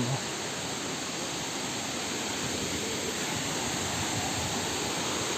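Waterfall's steady rush of falling water, an even unbroken noise.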